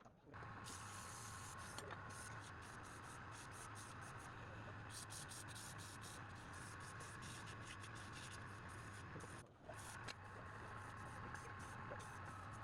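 Faint steady low hum with light hiss and scattered small ticks and scrapes, dropping out briefly about nine and a half seconds in.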